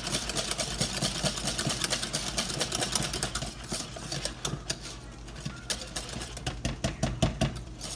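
Wire whisk beating mashed potatoes with heavy cream in a stainless steel saucepan: a fast run of clicks and scrapes as the wires strike the pot, easing off a little about halfway through and picking up again near the end.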